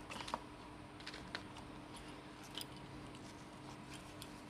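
Faint handling noise of a clip-on microphone, its thin cable and a cloth pouch being turned over in the hands: a few small clicks and rustles over a faint steady hum.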